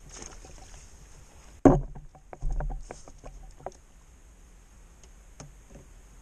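A sudden splash and knock about one and a half seconds in as a just-caught perch goes into the keepnet at the water's edge, followed by a run of sharp clicks and knocks from the angler's tackle being handled.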